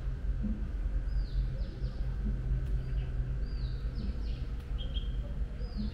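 A bird singing the same short phrase over and over, three or four quick high falling whistles about every two seconds, over a steady low hum of city background noise.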